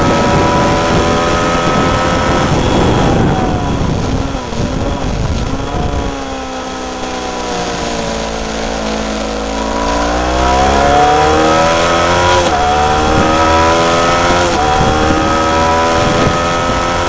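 Honda CBF500's parallel-twin engine at track speed, heard close up beside the engine over heavy wind noise. Its pitch falls for several seconds as the bike slows and leans into a corner, then climbs again under acceleration, with three quick dips at upshifts near the end.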